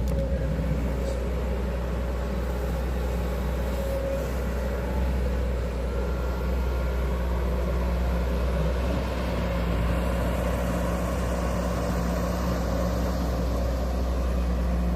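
Hydraulic excavator's diesel engine running steadily, a constant low hum with a few steady higher tones over it.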